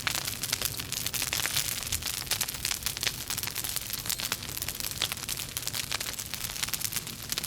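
Campfire burning: dense, irregular crackling and snapping of burning wood over a steady low rush of flame.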